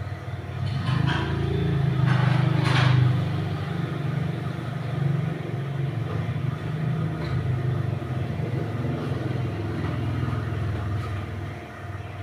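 Motorcycle engine running, its sound swelling to its loudest about three seconds in and then settling back to a steadier note.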